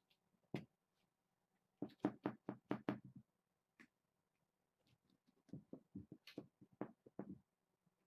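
Irregular dull thumps and knocks of a kitten jumping, pouncing and landing on a carpeted floor while chasing a wand toy's lure, in a quick cluster about two seconds in and another run from about five to seven seconds.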